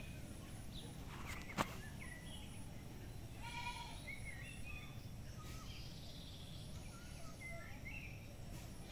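Outdoor ambience of small birds chirping on and off, with one short animal call about three and a half seconds in and a single sharp click about a second and a half in.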